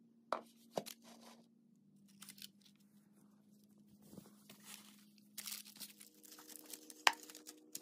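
Crinkling of parchment paper and rustling of a cloth kitchen towel as it is draped over a baking pan, with a few sharp knocks, the loudest near the end. A faint steady hum runs underneath.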